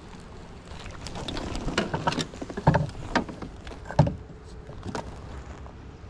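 Knocks and clatter against a paddle kayak's hull, a scatter of clicks with two louder thumps about three and four seconds in.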